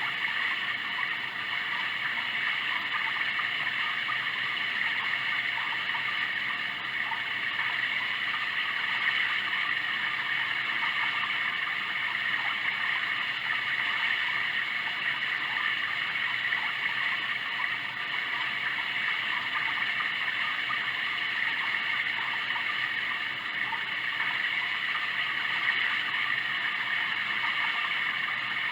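Sound Oasis ambient sound machine playing a running-water track, a steady, unbroken stream-like rush.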